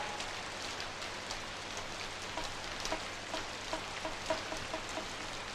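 Steady rain falling, with a short run of light pitched plinks like drips about halfway through.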